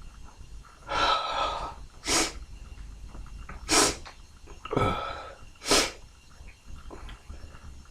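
A man sneezing three times in about four seconds. The first and third sneezes each follow a long drawn-in breath.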